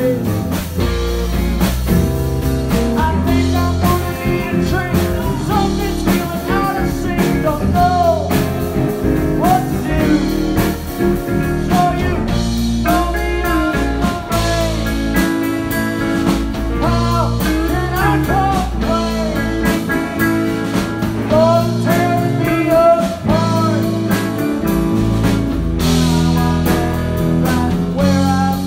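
Blues-rock music with guitar, drums and a singing voice.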